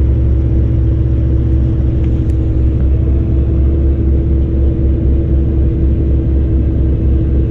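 Six-cylinder diesel engine of a Kenworth T660 truck running steadily at raised revs, a constant low rumble with a steady hum, heard from inside the cab. The engine is held high for a parked DPF regeneration, which heats the exhaust to burn soot out of the diesel particulate filter.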